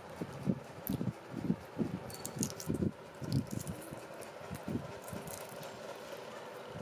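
A boiled quail egg's shell being cracked and peeled by hand: small dry crackles and clicks of shell fragments, the clearest cluster about two seconds in, among irregular dull bumps of handling.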